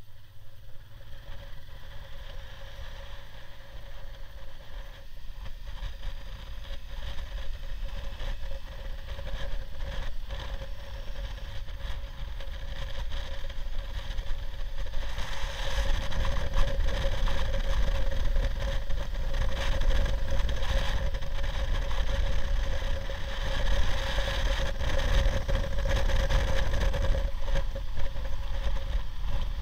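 Honda Deauville V-twin touring motorcycle riding along at road speed, heard from the rider's position: a steady engine hum under wind rush and buffeting. The wind and low rumble grow louder about halfway through as the bike speeds up.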